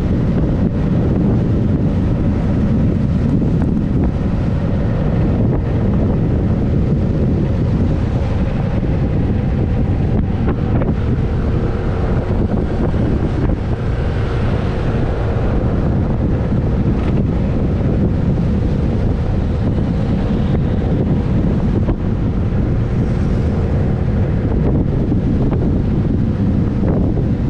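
Loud, steady wind buffeting on the microphone of a camera on the move, with a faint steady hum underneath.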